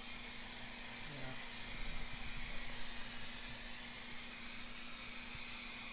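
Aerosol spray paint can hissing steadily as paint is sprayed onto a metal oil pan, over a faint steady hum.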